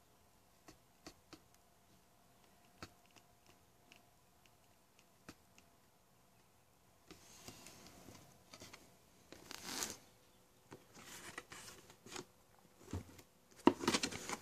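Handling noise from a cardboard box and its paper contents: scattered small clicks at first, then soft rustling, with louder rustling of cardboard and glossy paper near the end as a hand picks up a coupon card.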